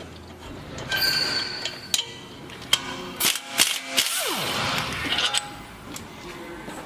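Metal clanks, knocks and ringing taps from hand tools and suspension parts being handled on a pickup's front strut assembly, irregular and spread over a few seconds.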